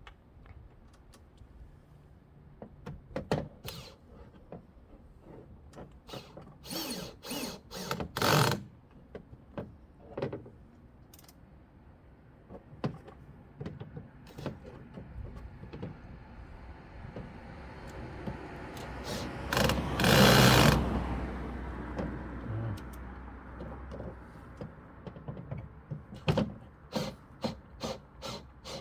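Scattered clicks and knocks of handling a screw and star drive bit against a plastic door organiser. About two-thirds of the way in, a cordless drill runs and builds for several seconds as it fastens the first screw through the plastic into the car door's thin metal. More light clicks follow near the end.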